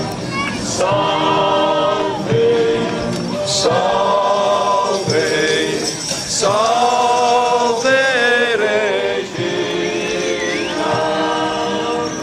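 Song in Dutch sung by several voices in long held phrases, like a choir, as a soundtrack.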